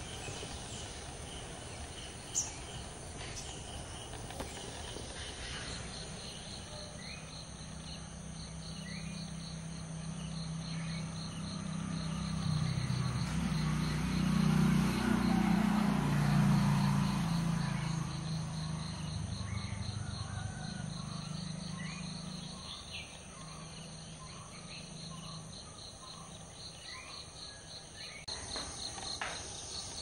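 Insects trilling steadily in a fast pulse, with short bird chirps every second or two. A low drone swells through the middle and fades again.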